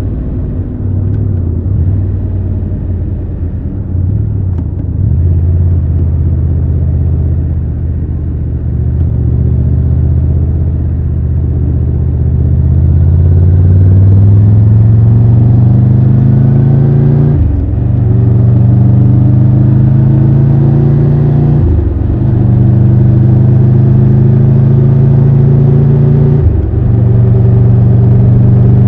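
Triumph Tiger 1200 Rally Pro's three-cylinder engine pulling away, its note climbing steadily for several seconds. In the second half come three quick gear changes, each a brief dip in the note, before it settles at steady cruising revs.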